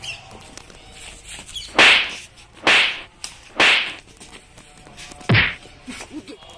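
Fight-scene hit sound effects: three sharp, whip-like whacks about a second apart, then a fourth, heavier blow with a low thud.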